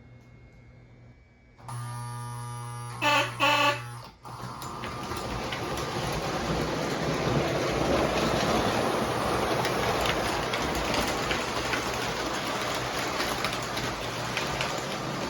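O gauge three-rail model train starting its run: a steady electrical hum comes on, two short loud signal blasts sound about three seconds in, then the train rolls off along the track with a growing, steady rumble and scattered clicks over the rail joints.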